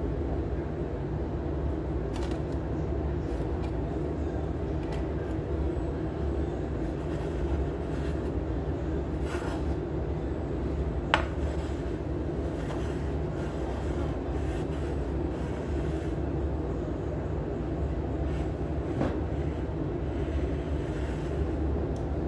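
A steady low machine drone with a constant hum. It carries a few faint knocks and one sharp click about eleven seconds in as the metal baking pan and bread rolls are handled.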